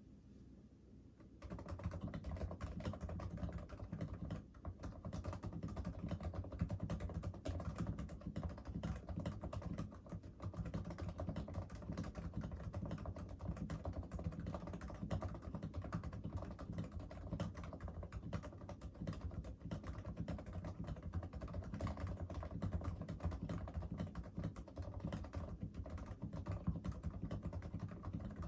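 Steady, fast typing on a Realforce RGB TKL keyboard with Topre switches, PBT keycaps, silencing rings and lubed sliders: a dense run of muted keystrokes that starts about a second and a half in.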